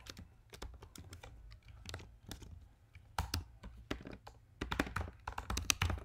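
Typing on a computer keyboard: rapid keystrokes in short runs, with a denser, louder flurry in the second half.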